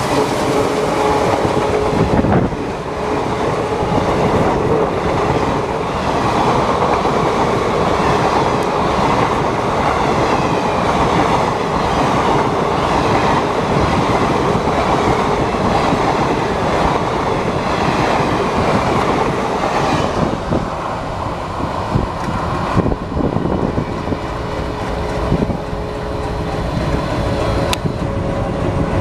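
Passenger coaches of an express train rolling past at speed, with a steady clatter of wheels over the rail joints. The WDM3A diesel locomotive's horn trails off about two seconds in.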